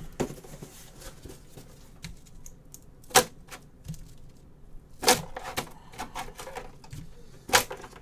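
Irregular light clicks and taps of small hard objects handled on a desk, with three sharper clicks about three, five and seven and a half seconds in.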